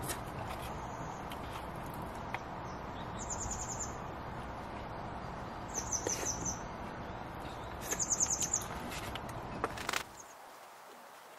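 A small bird sings three short, high, rapid trills a few seconds apart over steady background noise, with a few faint clicks; the background noise drops off abruptly near the end.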